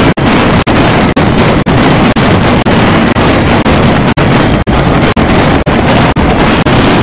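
Loud, dense fireworks explosions and crackling merged into one continuous blast of noise, chopped by a brief dropout about twice a second, like short edited snippets strung together.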